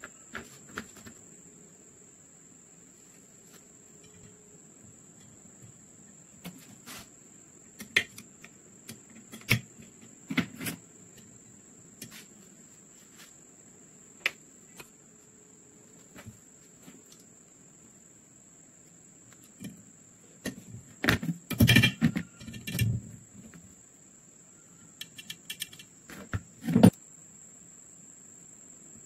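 Small steel rifle parts clicking and tapping as they are handled and fitted into a Mauser M48 receiver by hand: scattered single clicks, a dense run of taps about three-quarters of the way through, and a sharp click near the end. A steady high-pitched whine runs underneath.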